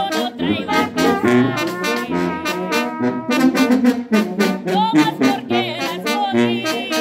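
Brass band playing a tune, horns holding pitched notes over steady percussion strokes.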